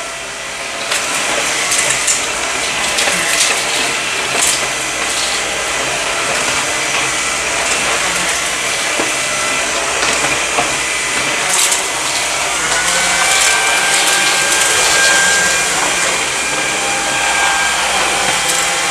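Samsung Jet VS70 cordless stick vacuum running on low power over carpet as it tries to take up large pieces of debris, with a few sharp ticks over the steady suction noise. A steady high whine comes in about two-thirds of the way through.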